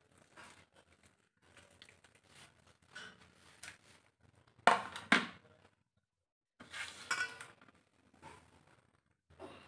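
Hands tossing sliced onion through raw chicken pieces in a stainless steel bowl, a soft rustling squish, with two sharp metal clinks a little under a second apart about five seconds in.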